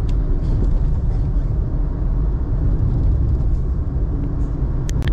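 Steady low rumble of a car on the move, heard from inside the cabin, with a couple of sharp clicks near the end.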